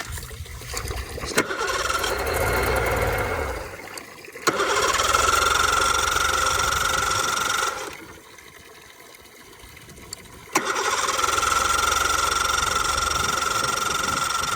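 Old oil-injected 60 hp Mercury two-stroke outboard being cranked on its electric starter in three bursts, the last two with a steady high starter whine, without catching and running: air trapped in the new fuel filter.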